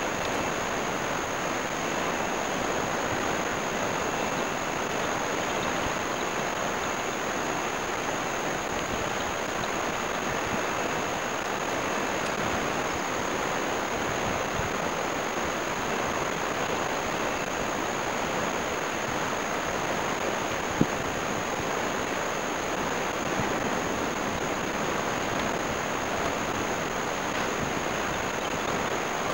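Steady rush of ocean surf on a beach, with a thin steady high-pitched whine over it. A single sharp click about two-thirds of the way in.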